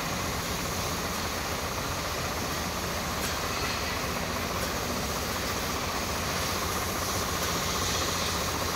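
Tractor diesel engine running steadily, driving a tractor-mounted HTP (high-pressure) sprayer pump, under the steady hiss of the spray jet.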